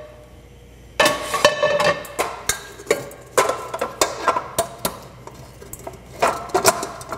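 Stainless steel mixing bowl and pans clanking against each other and the counter, a run of sharp knocks, each with a short metallic ring, starting about a second in and coming again near the end.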